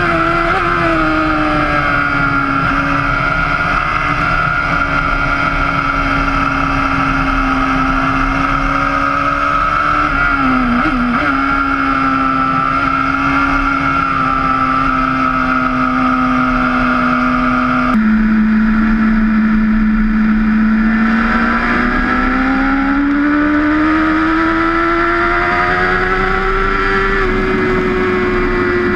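BMW S1000RR's inline-four engine running hard at high revs on the track, with heavy wind rush. The note holds steady with a brief wobble about ten seconds in. Later it drops abruptly, then climbs steadily as the bike accelerates, and levels off near the end.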